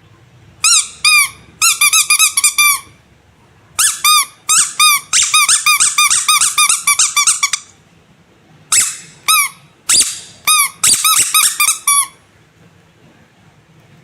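Squeaky rubber animal toy squeezed over and over, giving short high-pitched squeaks in quick runs of several a second, with short pauses between the runs.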